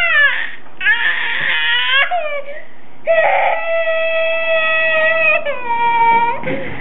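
Toddler girl crying in a cranky meltdown: a string of high, wailing sobs, the longest a steady held wail of about two seconds in the middle, with a lower cry falling in pitch near the end.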